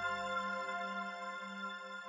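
Ambient new-age background music of soft held tones, fading out. Its low bass drops away within the first second.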